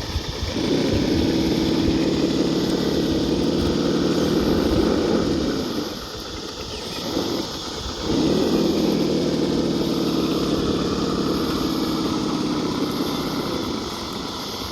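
Radio-controlled rock crawler's electric motor and gear train whining under throttle as it climbs rock. The whine comes in two steady stretches of about five seconds each, with a short let-off between.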